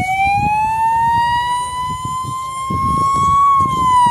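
Fire engine siren wailing, its single tone climbing slowly and then starting to fall near the end, with low rumbling noise beneath.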